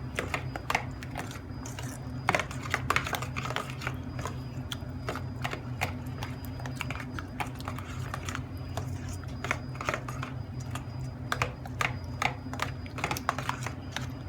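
Marinade being stirred in a small bowl: a utensil clicking and tapping against the bowl in quick, irregular strokes.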